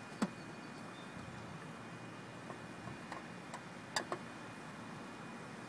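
A few faint, irregular clicks of a screwdriver turning the two screws on the sheet-metal trap door at the back of a Generac H Panel generator controller, two of them close together about four seconds in, over a steady low hiss.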